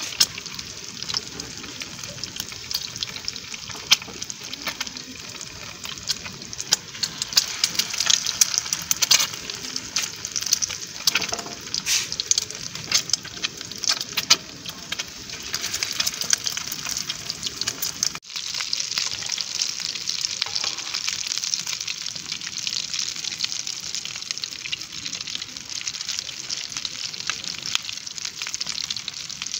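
Egg-coated chicken shami kababs shallow-frying in hot oil in a black frying pan: steady sizzling with frequent crackling pops. After a brief gap about two-thirds of the way through, the sizzle runs denser and more even.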